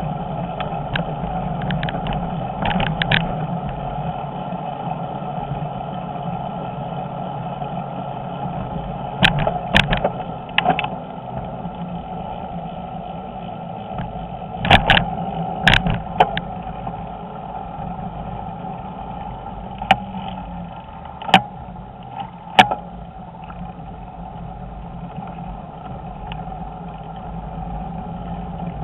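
Riding noise of a bicycle on a concrete-block paved cycle path, picked up by a handlebar-mounted camera: a steady hum of tyres and wind, broken by sharp knocks and rattles as the bike jolts over bumps and kerbs. The knocks come in two clusters about a third and halfway through, then three single knocks.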